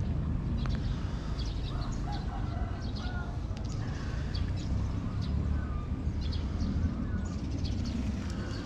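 Outdoor ambience: birds chirping and calling in short, scattered notes over a steady low rumble.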